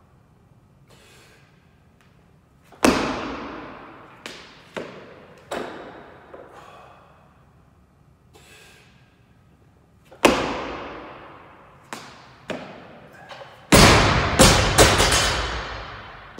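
Sharp, echoing impacts from jerks of a 96 kg barbell with rubber bumper plates: a loud one about three seconds in and another about ten seconds in, each followed by a few smaller knocks. Near the end the barbell is dropped onto the wooden lifting platform and bounces, a quick cluster of the loudest thuds.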